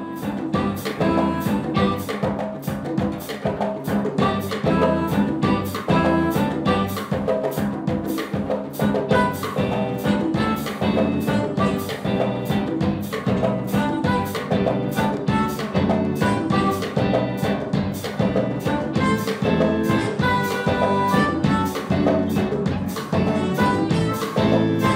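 Live band playing an instrumental with a harmonica lead played into a handheld microphone, backed by saxophone and a steady drum-kit beat.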